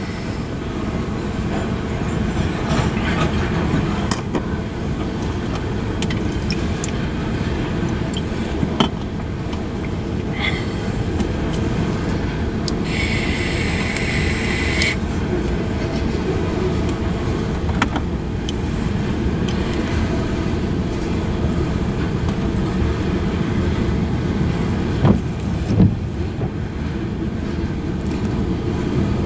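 Freight train of covered hopper cars rolling past: a steady rumble of steel wheels on the rails, with scattered sharp knocks and a high squeal for about two seconds midway.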